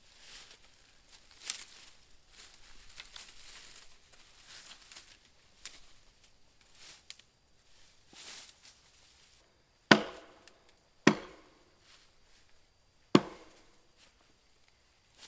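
An axe chopping wood: softer rustling and a few light knocks, then three heavy strikes in the last third, the second about a second after the first and the third about two seconds after that.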